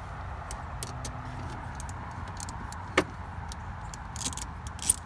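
Scattered light clicks and taps of a hand wrench tightening a hose clamp on the intake elbow, with one sharper click about three seconds in, over a steady low hum.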